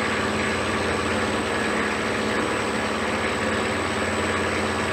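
Electric motor in a converted car's engine bay running steadily, turning the belt-driven power-steering and brake pulleys: an even hum with a faint high whine.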